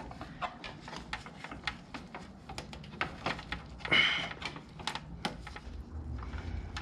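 Irregular light clicks and taps of a new K&N oil filter being fitted by hand and threaded onto a Yamaha R6 engine's filter mount, with one louder scrape about four seconds in.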